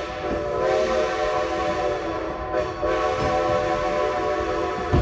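Steam locomotive's whistle blowing one long, steady blast that stops near the end, sounded for the crossing ahead, over the low rumble of the train rolling along.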